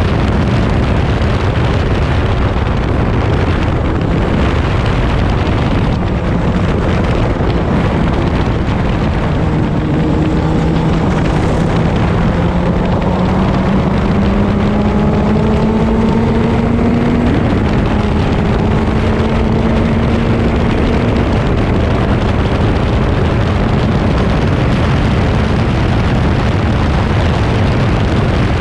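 Onboard sound of a Crossle 32F Formula Ford: its Ford Kent four-cylinder engine running amid heavy wind rush on the microphone as the car slows from about 110 mph to a crawl. The engine note rises slowly through the middle of the stretch.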